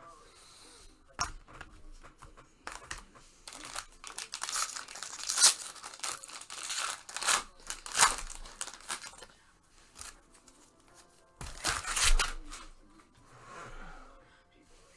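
Paper or foil packaging being torn open and crinkled by hand in irregular rustling bursts, as a trading card pack is opened, loudest in the middle and again briefly near the end.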